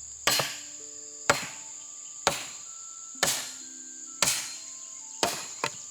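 Axe chopping firewood: six sharp strikes about a second apart, each with a short ringing tail, over a steady high drone of insects.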